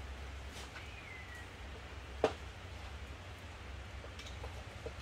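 Quiet shop work on a stripped four-wheeler: a single sharp click of a hand tool on metal a bit over two seconds in, a few faint ticks and a short faint squeak, over a steady low hum.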